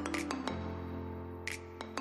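Instrumental background music: held low notes with short, sharp percussive strikes scattered over them, a note change about half a second in.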